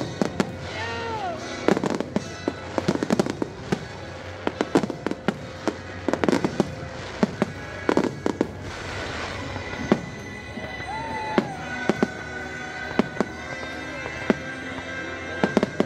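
Aerial fireworks shells bursting overhead: many sharp bangs and crackles in quick, irregular succession.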